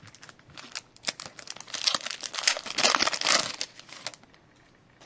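Foil wrapper of a 2010-11 SP Authentic hockey card pack crinkling and tearing as it is opened, a rapid run of crackles for about four seconds that stops abruptly.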